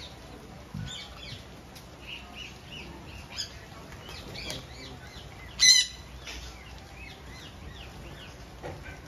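Indian ringneck parakeets chattering in short high chirps, with one loud harsh squawk about two-thirds of the way through.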